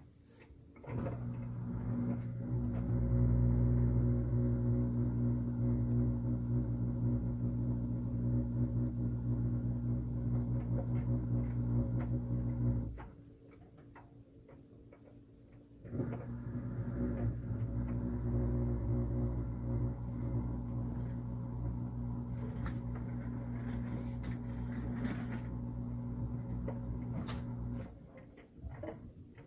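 Washing machine running with a steady motor hum and low rumble for about twelve seconds, pausing for about three, then running again for about twelve seconds before dropping away near the end, the stop-and-go pattern of a wash cycle.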